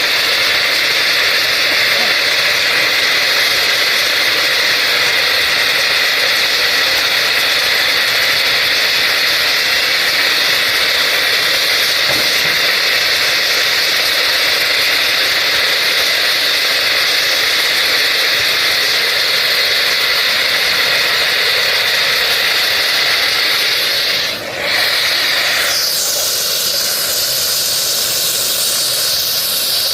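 Steady, loud hiss from rail thermit welding work. It dips briefly about 24 seconds in, and its tone shifts slightly about two seconds later.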